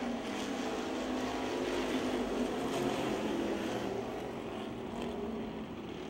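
A pack of street stock race cars running at speed around a dirt oval, many engines sounding together. The sound eases off slightly in the last couple of seconds.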